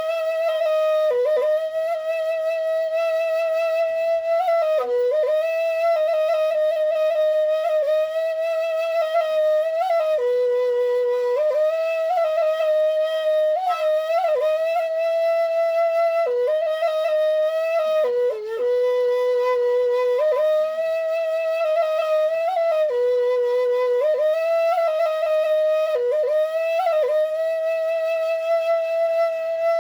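Balinese suling bamboo flute playing a solo melody. It mostly holds one note with a wavering vibrato and drops briefly to a lower note every few seconds with quick ornamental flicks, and the line never breaks for a breath.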